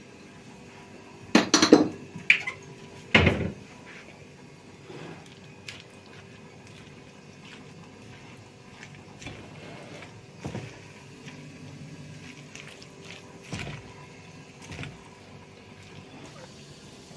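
A metal fork clinking and scraping against a ceramic bowl as chopped salad is stirred. There are a few loud clatters between about one and three and a half seconds in, then lighter, scattered clicks and scrapes.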